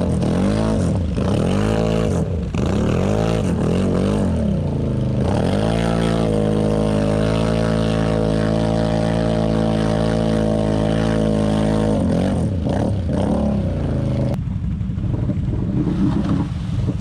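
ATV engine revved in repeated quick rises and falls, then held at high revs for about six seconds before dropping back, as the quad sits stuck in deep mud.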